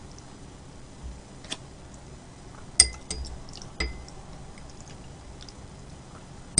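Eating utensils clinking against a dish, several sharp separate clinks with a brief ring, the loudest about three seconds in.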